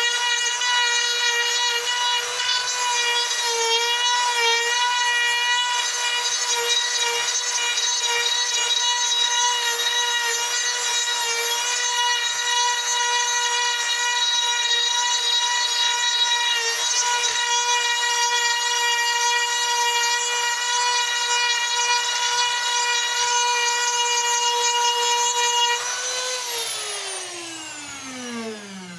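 High-speed rotary carving tool running steadily while cutting grooves in wood, its pitch dipping slightly as the bit bites. About 26 seconds in it is switched off and its whine falls steadily in pitch as it spins down.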